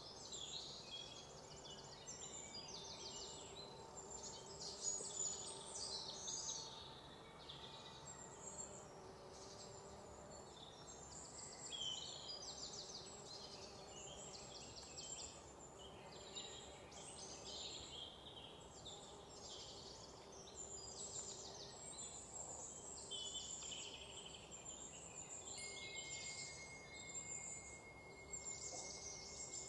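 A faint, continuous chorus of high-pitched bird chirps and rapid insect trills, with a thin steady tone joining near the end.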